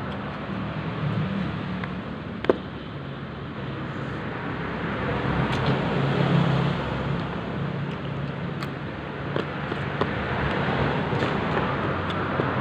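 Steady road traffic noise with a low engine hum that swells and fades, and a sharp click about two and a half seconds in.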